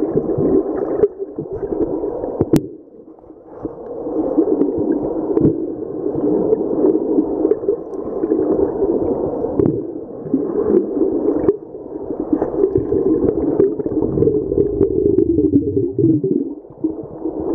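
Muffled underwater water noise picked up through the camera: surging, gurgling sloshing with most of its sound low and dull, dipping briefly about three seconds in, with a few sharp clicks.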